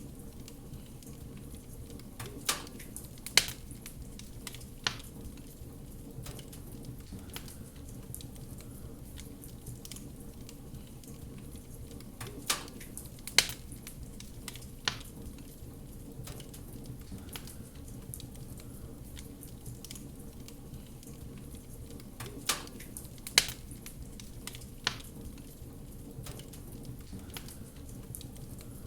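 Fireplace fire burning with a steady low hiss and rumble, broken by sharp crackling pops that come in clusters of three, the same cluster recurring about every ten seconds.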